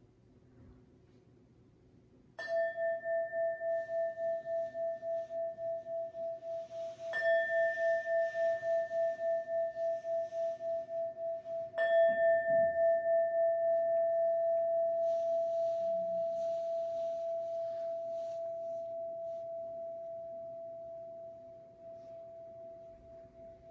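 A bell struck three times, about five seconds apart. Each stroke rings on as a steady tone with a slow pulsing wobble, and the last fades out slowly. The bell is rung to call the congregation back to attention.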